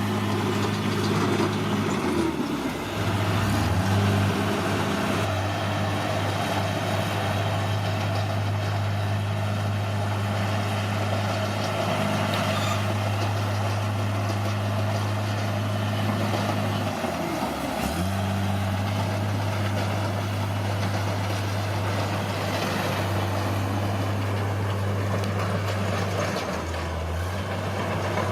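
Bulldozer's diesel engine running steadily under work, its low note dipping briefly twice, a few seconds in and about two thirds of the way through.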